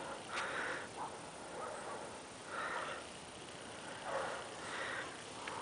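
Dry fallen leaves rustling and crunching several times, in short irregular spells, as something moves through a ground covered thickly with leaves.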